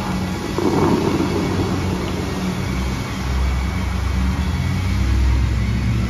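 Bellagio fountain show: the show's music over loudspeakers, sustained notes with deep bass swelling from about three seconds in, over the steady rushing hiss of the water jets. A rush of noise comes about half a second in and fades over a couple of seconds.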